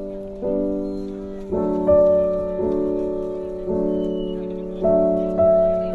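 Background piano music: soft chords struck about once a second, each one fading before the next.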